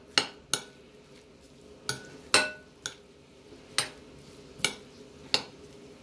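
A utensil clinking against a glass bowl while grated beetroot salad is stirred: about eight sharp clinks at uneven intervals, some with a brief ring.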